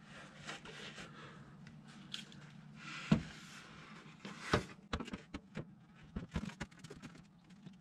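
Composite front splitter being pushed up and fitted against the underside of the car's front bumper by hand: two sharper knocks a few seconds in, then a run of smaller taps and clicks as it is shifted into place.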